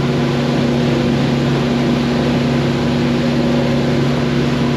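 Large outboard motor running steadily at cruising speed with the boat on plane: an even engine hum over a constant rush of wind and water.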